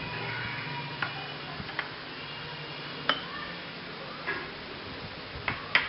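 Light, irregular clicks and taps of small dishes being handled and set down on a kitchen counter, a handful of sharp ticks a second or so apart, the loudest two in quick succession near the end.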